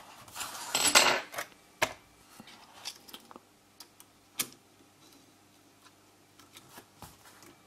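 Handling noises: a rustle and scrape about a second in as a metal model-railway test track is moved on the paper-covered table, then a few light clicks and knocks as a small H0 wagon underframe is set on the metal rails.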